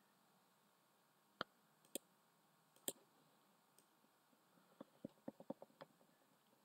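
Faint computer mouse clicks against near silence: three single clicks spaced about half a second to a second apart, then a quick run of about seven clicks around five seconds in.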